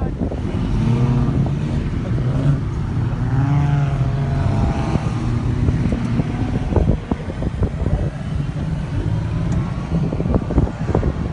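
Off-road vehicle's engine revving up and down while driving over sand, with steady low rumble and scattered knocks and bumps.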